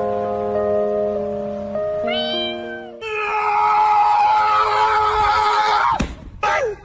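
Background music of steady held notes with a cat meowing over it: one short meow about two seconds in, then a louder, denser stretch from about three seconds.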